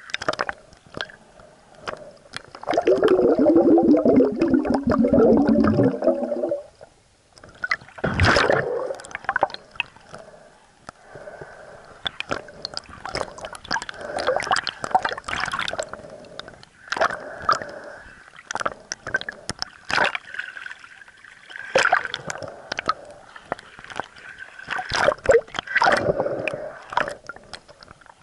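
Muffled gurgling and sloshing water picked up by a camera held underwater, with scattered clicks. There is a loud stretch of bubbling about three to six seconds in, and a sharp burst of water noise at about eight seconds.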